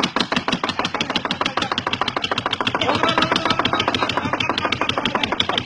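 A person imitating a Lister diesel engine running with their mouth: a steady, fast, even run of beats.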